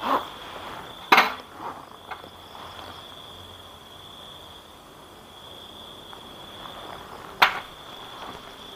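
Crickets chirring steadily at a high pitch, with three sharp knocks: one at the start, one about a second in and one near the end.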